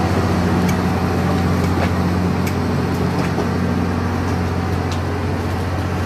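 A steady low mechanical hum of a running motor, with a few faint clicks.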